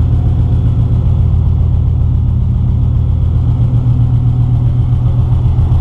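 Subaru GC8 Impreza's rebuilt flat-four engine running at a steady idle, with the hood open.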